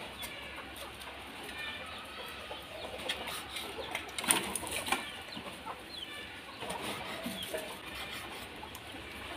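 Chickens clucking in the background while a knife slices cooked pork belly on a wooden chopping board, with a few sharp taps of the blade on the board.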